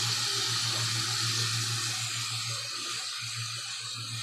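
Potato pieces sizzling in oil and masala in a steel pot on a gas stove, being fried: a steady hiss, with a steady low hum underneath.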